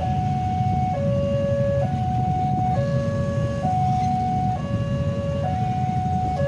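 Railway level-crossing warning alarm sounding: an electronic two-tone signal switching back and forth between a higher and a lower tone, each held a little under a second, warning that a train is approaching. Underneath is the steady low rumble of motorcycle engines idling at the crossing.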